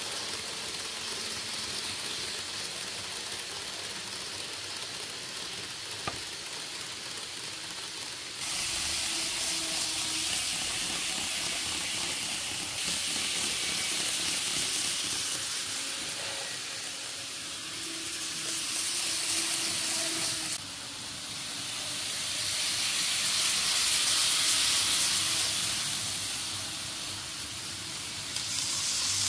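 N-gauge model trains running on a layout: a steady hissing whir of small wheels on track and little motors, with a faint motor hum underneath. It gets louder and quieter as trains pass the microphone, with sudden jumps in level at a few points.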